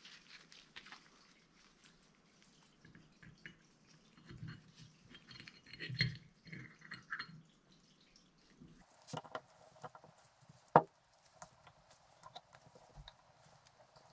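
Quiet handling noises of new brake-fluid-coated pistons being pressed into a dirt bike front brake caliper: soft wet squishes and light metal clicks, with one sharp click about three-quarters of the way through.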